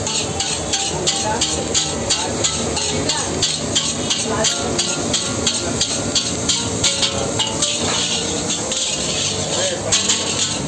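Metal ladle striking and scraping a wok in a steady rhythm, about three strokes a second, as fried rice is tossed. A steady hiss runs underneath.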